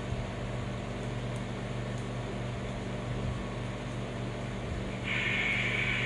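Steady mechanical hum and hiss of room machinery, with a low electrical buzz. A louder, hissing noise joins for about a second and a half, some five seconds in.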